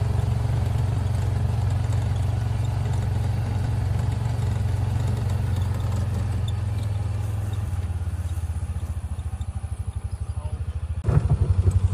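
A vehicle's engine running steadily as it is driven. About eight seconds in it drops to a slower, throbbing note, then grows louder again near the end.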